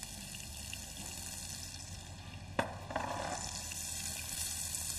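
Chopped onions frying in oil and butter in a pan, a steady sizzle. A single sharp knock comes about halfway through, and after it the sizzle grows louder.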